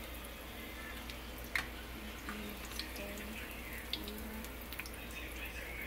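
Egg-battered green bean bundles frying in shallow oil in a skillet: a steady hiss with scattered crackles and pops, one sharper pop about one and a half seconds in.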